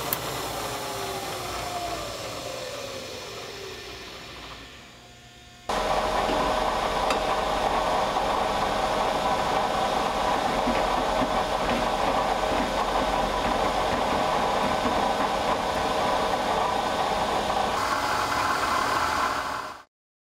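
Milling machine running, its pitch falling and fading over the first few seconds as the spindle slows. About six seconds in, a face mill with carbide inserts starts cutting across an aluminum block: a loud, steady whine with cutting noise, which stops abruptly just before the end.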